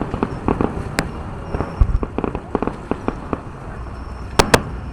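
Aerial fireworks going off: a quick run of crackling pops through the middle, then two sharp bangs close together near the end.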